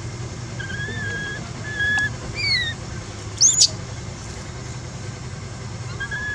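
Infant long-tailed macaque crying: a series of thin, whistle-like squeals, one of them falling in pitch, and a short, loud, high-pitched scream about three and a half seconds in. A steady low rumble runs underneath.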